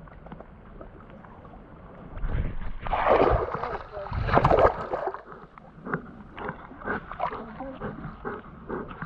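Water splashing for a few seconds, then a Belgian Malinois panting in short, even breaths, about two a second.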